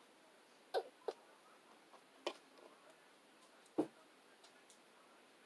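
Four short, soft knocks or clicks, spread unevenly over a few seconds, against a quiet room.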